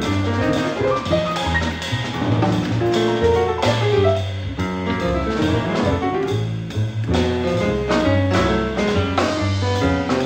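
Jazz piano trio playing: piano and bass lines over a drum kit, with frequent drum and cymbal hits.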